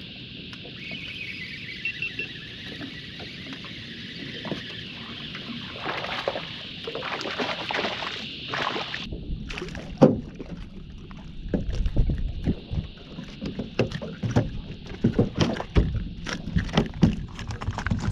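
A fishing reel being wound steadily as a small flathead is reeled in, then, about nine seconds in, a run of sharp knocks, taps and low thumps as the fish is brought aboard and handled on the boat's deck.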